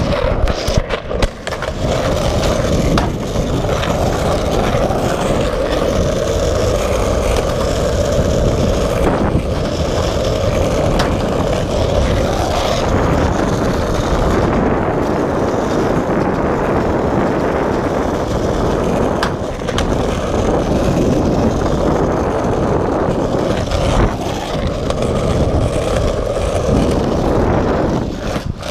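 Skateboard wheels rolling steadily over concrete sidewalk, a continuous rumbling roll with a few sharp clicks along the way.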